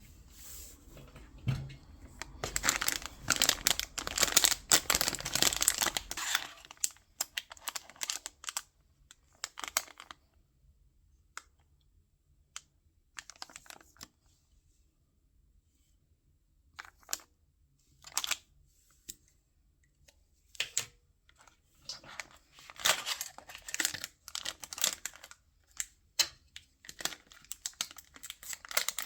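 Blind-box toy packaging being torn open and crinkled by hand: a long stretch of dense crinkling near the start, then scattered taps and small rustles, and more crinkling near the end.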